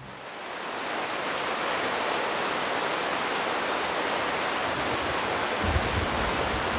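Heavy rain falling steadily during a night thunderstorm, a dense hiss that fades in over the first second. A low rumble of thunder starts near the end.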